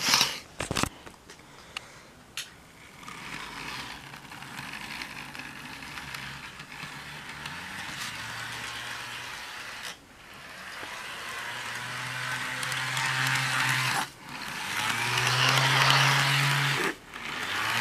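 Motor and gears of a Bachmann Spectrum Amtrak F40PH model locomotive whirring as it runs along the track on a test run, with a few clicks at the start as it is set on the rails. The steady hum grows louder as the locomotive comes close and passes by, dropping out briefly a few times.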